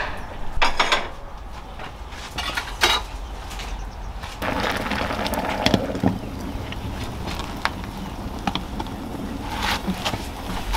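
Scattered knocks and clatter of objects being handled, with a denser stretch of rustling and scraping about four and a half seconds in.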